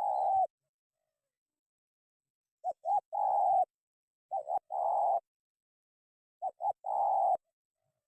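Spotted dove (terkukur) cooing: a repeated low call of two short notes and then one longer note, heard three times about two seconds apart, after the end of one call at the start.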